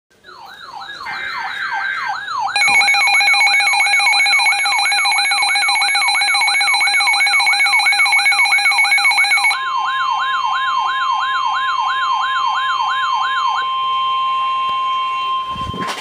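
Midland NOAA weather radios alarming for a severe thunderstorm warning: a warbling siren tone sweeping up and down about three times a second, with a rapid beeping alarm layered on it from about two and a half seconds in. About ten seconds in, the beeping gives way to a steady single alert tone, and the siren stops shortly before the end.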